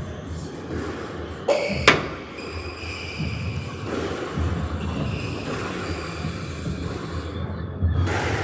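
Squash rally on a wooden-floored court: two sharp smacks of the ball off racket and wall about half a second apart, a second and a half in, with short squeaks of shoes on the floor as the players move.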